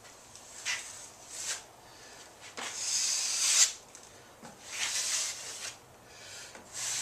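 Drywall taping knife scraping across joint compound and tape on the wall in separate strokes: two short strokes, then longer strokes of about a second each, with a quiet gap between strokes.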